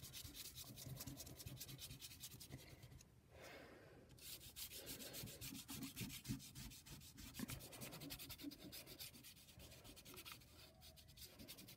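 Chalk pastel scratching over construction paper in quick back-and-forth coloring strokes, faint, with a brief pause about three seconds in.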